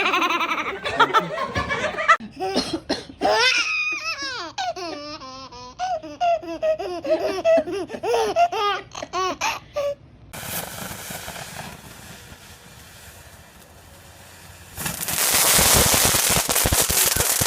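A small child laughing in repeated high-pitched giggles for about ten seconds. It cuts off suddenly, leaving a steady hiss, and near the end a loud rough crackling noise starts.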